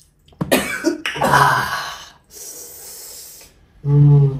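A person draws a sharp, noisy breath in and then lets out a long breath, with a short hummed 'mm' near the end.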